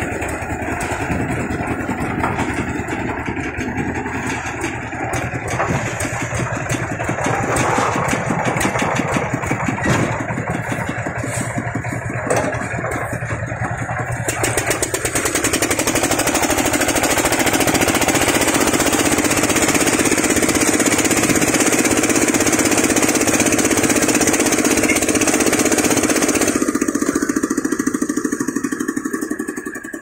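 The engine of a site concrete mixer with a hoisted loading hopper, running steadily, with scattered knocks and clatter over the first half. About halfway through the sound becomes louder and steadier, with a higher hissing edge, then eases back near the end.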